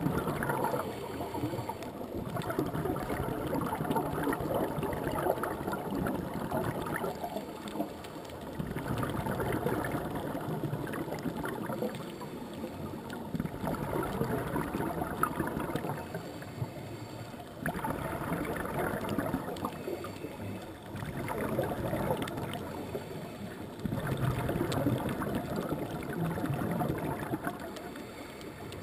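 Scuba diver's regulator breathing underwater, with exhaled bubbles gurgling in regular swells about every four seconds.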